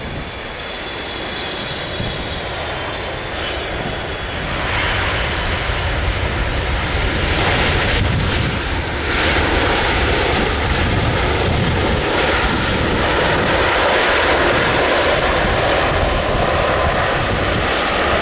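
Boeing 777 jet airliner's turbofan engines, a loud rushing jet noise that builds over the first few seconds and then holds steady.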